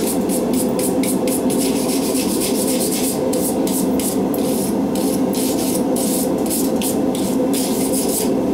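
Quick rasping hand strokes, about three a second, like brushing or filing, over the steady roar of a gas forge burner running.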